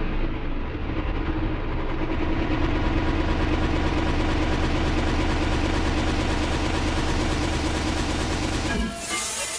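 Slowed, reverb-heavy electronic music: a dense, rumbling distorted wash over a sustained low bass note. It cuts off near the end, and plucked notes that bend in pitch begin.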